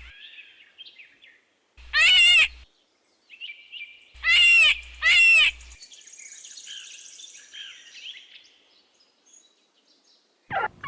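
Hare screaming: three short, wailing cries, one about two seconds in and two close together around four to five seconds in, with faint bird chirps between them.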